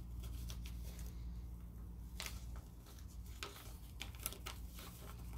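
Faint rustling and creasing of a sheet of paper being folded and pressed flat by hand for origami, heard as a few short, crisp scrapes, most of them in the second half.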